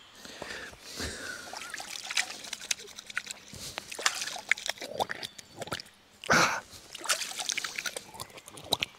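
Hands being washed in river water: repeated small splashes and trickling, with one louder splash about six seconds in.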